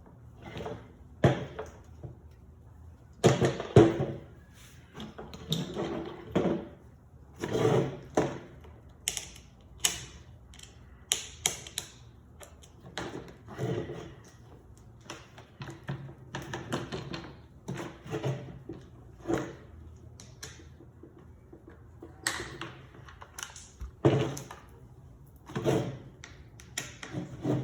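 Irregular sharp knocks and taps, one every second or two, from a small hammer striking the screw heads in a chainsaw's plastic handle to knock the dirt out of them, with quieter scraping of hand tools between the strikes.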